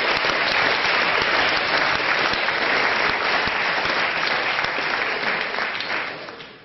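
Audience applauding, the clapping dying away over the last second.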